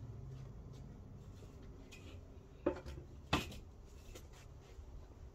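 A few light clicks and knocks of small hard objects being handled, with two sharper clacks a little over half a second apart near the middle.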